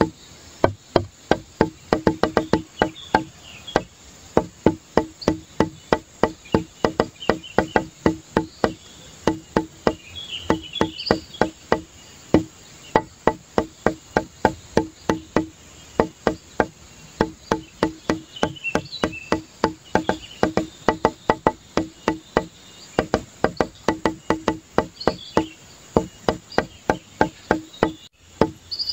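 Background music with a quick, steady knocking beat of pitched, wood-block-like notes.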